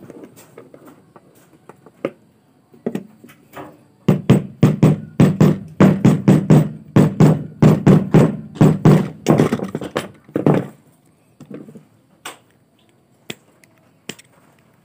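Hammer blows on pliers clamped over the metal end fitting of a stainless-steel flexible bidet hose, crimping the fitting back onto the hose: a steady run of sharp taps, about three a second, starting about four seconds in and lasting some six seconds. A few single clicks of the tools come before and after.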